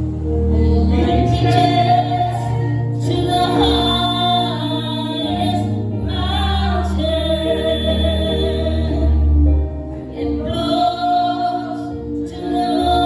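A woman singing a gospel solo in long held phrases with vibrato, over an accompaniment of sustained low notes.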